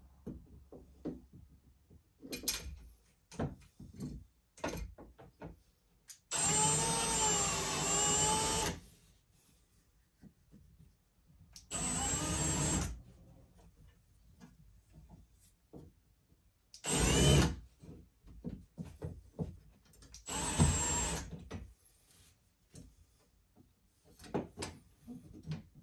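Cordless drill driving screws through the drywall into wood: four runs of the motor, the first and longest about two seconds with its pitch wavering under load. Clicks and knocks of handling come between the runs.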